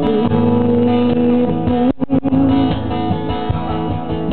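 Song with acoustic guitar, an instrumental passage between sung lines.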